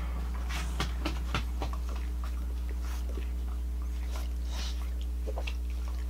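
Faint, scattered clicks from a dog shifting against the table, over a steady low hum.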